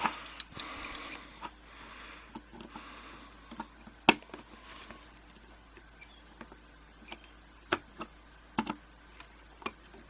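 Small metal tool clicking and scraping against the retaining clip of a padlock's euro cylinder as the clip is pried off: irregular sharp clicks, the loudest about four seconds in, with short scrapes early on.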